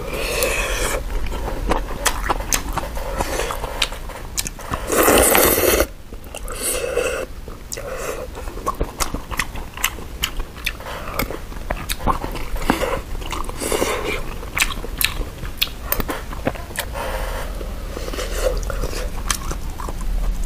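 Close-miked eating of malatang: chewing and mouth noises with many small clicks of chopsticks and spoon, and one louder noisy burst about a second long some five seconds in.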